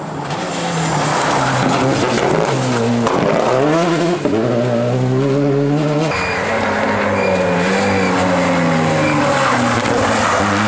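Rally car engines under hard throttle: a Citroën DS3 rally car accelerating up the road with its engine note rising and falling through gear changes. An abrupt cut about six seconds in switches to a second rally car's engine revving hard as it passes.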